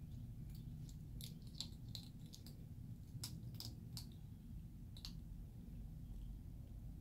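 Striped skunks crunching dry pet-food kibble: faint, irregular sharp crunches, about a dozen in all, over a low steady hum.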